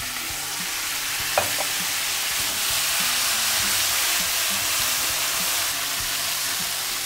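Pasta cooking water poured into a frying pan of porcini mushrooms in hot oil, setting off a steady hissing sizzle that swells over the first few seconds and then holds. A single brief click sounds about a second and a half in.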